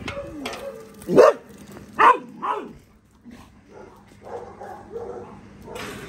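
Dogs barking in play: three short, loud barks starting about a second in, then quieter sounds.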